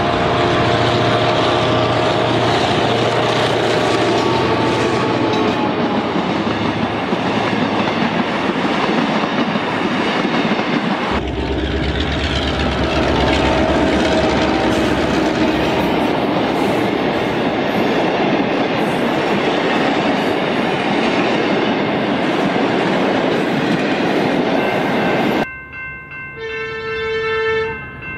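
Model train locomotive running along sectional track close to the microphone: a loud, steady whirring rattle of motor and wheels. About 25 s in it cuts off abruptly, leaving a few steady electronic horn-like tones.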